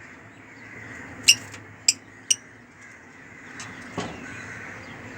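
African lovebirds giving short, shrill calls: three loud sharp ones about half a second apart, then a couple of fainter ones, over a steady background hiss.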